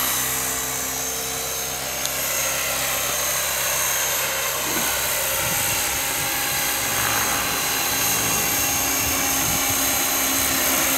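Radio-controlled scale Bell LongRanger helicopter flying, its motor and rotors making a steady whine made of several held tones, which waver a little in pitch from about halfway through.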